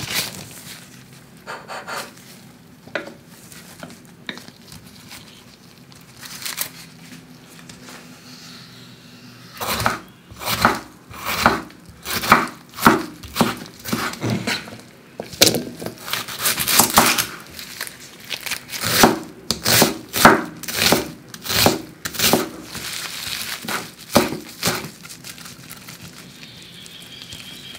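Kitchen knife chopping tomatoes and other vegetables on a wooden cutting board: a run of sharp knocks, about one to two a second, starting about ten seconds in. Quieter handling clicks and rustling come before it.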